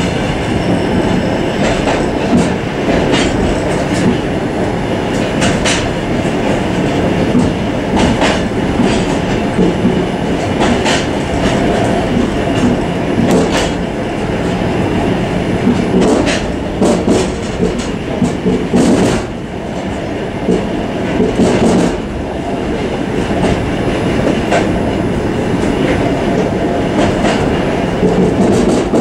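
Suburban train running on the track, heard from inside its vestibule: a steady running noise with irregular sharp clacks from the wheels on the rails.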